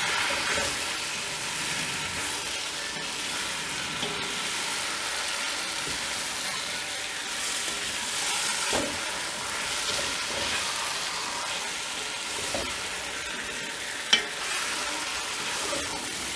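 Chicken pieces sizzling in hot oil and spice masala in a pot while a wooden spatula stirs and scrapes them through. A single sharp knock comes near the end.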